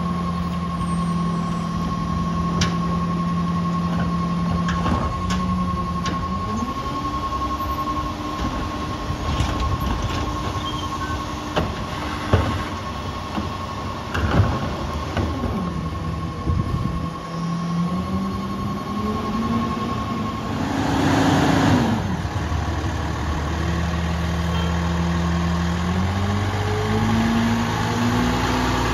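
Peterbilt 337 diesel garbage truck with a New Way Viper rear-loader body working its hydraulic packer: the engine revs up and settles back several times as the blade cycles, with carts knocking against the hopper. A steady high-pitched beeping runs through about the first two-thirds, the warning that the body has reached full capacity. A burst of hiss comes about three-quarters of the way in.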